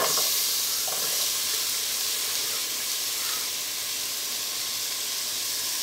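Chopped onion and grated carrot sizzling in hot vegetable oil in a multicooker bowl on its frying setting: a steady high hiss that eases slightly over the seconds.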